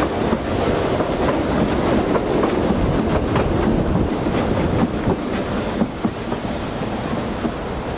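A train running past, its wheels clattering over the rail joints in a steady stream of clicks over a loud rumble, easing slightly near the end.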